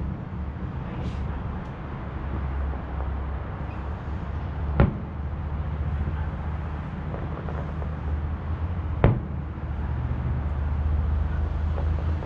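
Distant aerial firework shells bursting: two sharp booms, one about five seconds in and another about four seconds later, over a steady low rumble.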